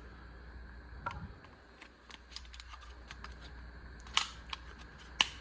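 Scattered light clicks and taps from a small handheld object being handled, with two sharper clicks near the end.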